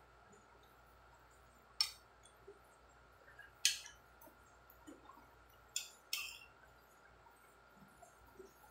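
Metal fork and spoon clinking against a ceramic plate while eating: four sharp clinks, the loudest near the middle and the last two close together.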